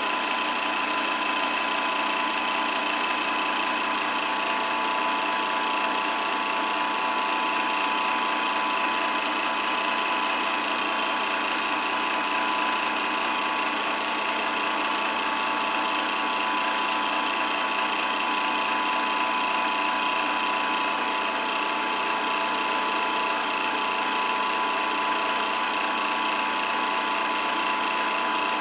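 8mm film projector running steadily, its mechanism making a rapid, even mechanical whirr with a steady whine.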